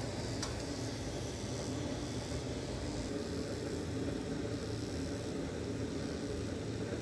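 Steady low hum of a small fan motor running, with a faint click about half a second in.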